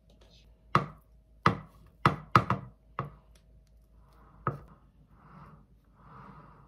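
About seven sharp knocks of a utensil on a hard surface in the first four and a half seconds, two of them in quick succession, followed by soft scraping as a metal cake scraper smooths whipped cream around the cake on a turntable.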